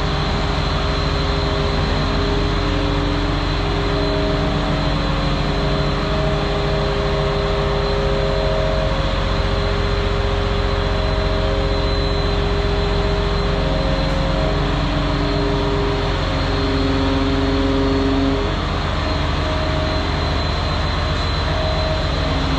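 John Deere crawler dozer's diesel engine running steadily under hydraulic load as the tile plow is raised and lowered, with a few held tones that step up and down in pitch as the hydraulic levers are worked.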